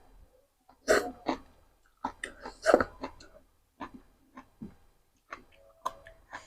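Close-miked mouth sounds of a person eating spicy seblak with rice vermicelli: a string of short wet chewing smacks and a few louder slurps, about one and three seconds in.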